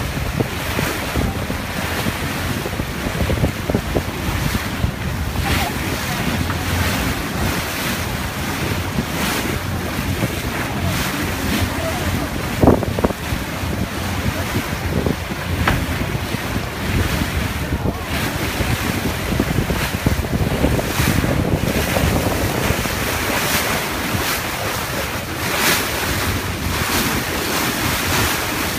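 Motorboat running across choppy open water: wind buffeting the microphone, and the wake rushing and splashing along the hull. About halfway through there is a brief pitched sound.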